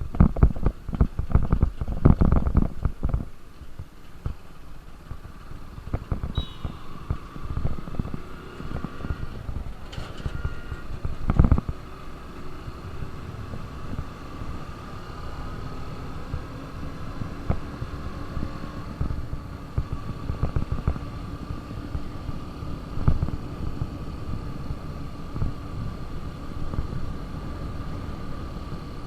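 KTM RC 200's single-cylinder engine running at cruising speed on the move, a steady engine note under wind buffeting on the microphone. The buffeting is heaviest in the first three seconds, and there is a sharp thump about eleven seconds in.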